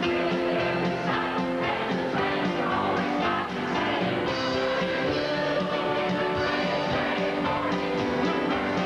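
Mixed senior adult choir of men and women singing a song together.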